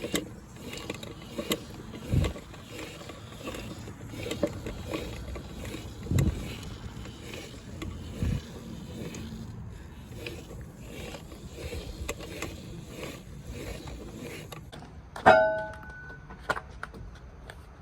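Scattered knocks and dull thumps of work with a jack and tools under a tractor's front end. About fifteen seconds in comes one sharp metallic clang that rings briefly.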